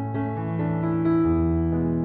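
Background music: slow, soft piano chords held and changing every second or so.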